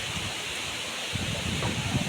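Steady rush of the Coban Kepel waterfall's falling water, with low gusty rumbling of wind on the microphone picking up about a second in.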